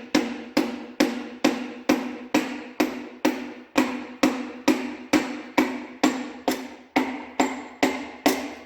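Wooden hammer handle tapping a piston down through a ring compressor into a cylinder bore of a Perkins 236 diesel engine: steady taps about twice a second, each with a short metallic ring from the compressor band. The taps stop near the end as the piston slips into the bore.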